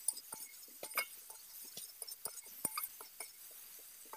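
Metal spatula scraping and clinking against a metal kadai while stirring a sautéing onion-tomato masala: light, irregular clinks and scrapes, several a second.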